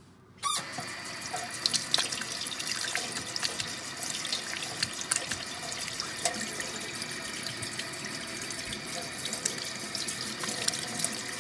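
Kitchen tap running into a stainless steel sink, the stream splashing over a hand being rinsed; the water comes on about half a second in and runs steadily with scattered spatters.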